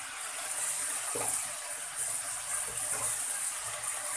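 Chopped capsicum, onion and garlic sizzling steadily in hot oil in a kadai, a bright even hiss with a few faint ticks.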